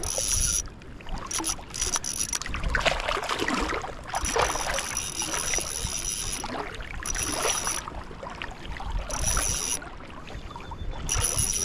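Shallow sea water sloshing and splashing as someone wades through it, in uneven surges, with low wind rumble on the microphone.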